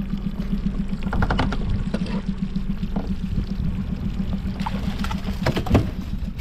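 A 40 hp outboard motor idles with a steady low hum while water splashes as a pike is hauled thrashing from the surface beside the stern. A brief voice sound comes near the end.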